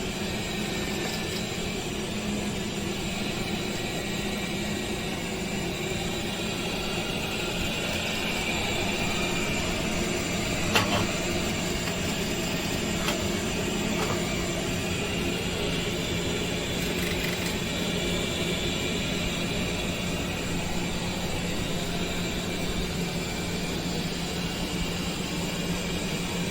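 Roborock S8 robot vacuum running: a steady suction-motor whir with a low hum, a sharp click about eleven seconds in and a couple of fainter clicks soon after.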